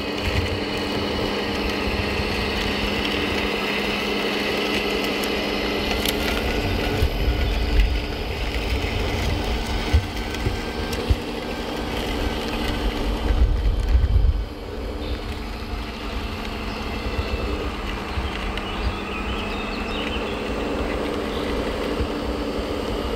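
Radio-controlled Mercedes-Benz Actros tipper truck running over gravel: a steady hum of several tones over an uneven low rumble that grows louder twice, about a third and about two thirds of the way through.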